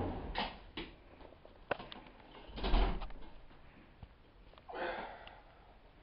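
A house door being pushed shut, with a few sharp knocks and short swishing sounds. The loudest is a swish with a low thud about three seconds in.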